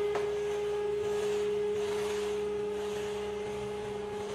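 Electric hydraulic scissor car lift running with a steady whine as it raises the car, over a hiss.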